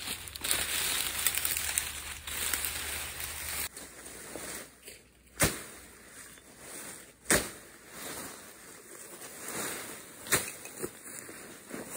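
Overgrown grass and brush being slashed with a machete. There is rustling for the first few seconds, then three sharp chops, two to three seconds apart.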